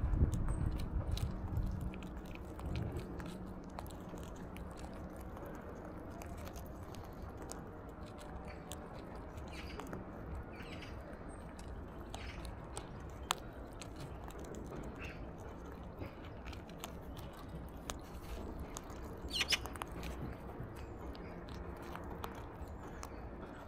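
Alexandrine parakeet cracking and eating seeds at a feeder: irregular small crunches and clicks from its beak throughout, with a short bird call about two-thirds of the way in.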